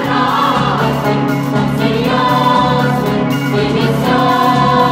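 Background music: a choir singing long, held notes.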